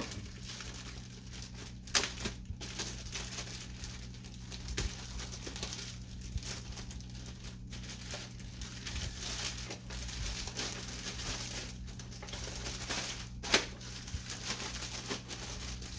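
Thin clear plastic covering crinkling and rustling as it is handled and pulled open around a robot vacuum, with two sharper snaps: one about two seconds in and a louder one near the end.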